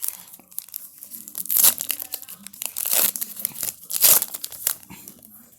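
Crinkling and tearing of a trading card pack's wrapper as it is handled and torn open, with three loud rips about 1.7, 3 and 4 seconds in.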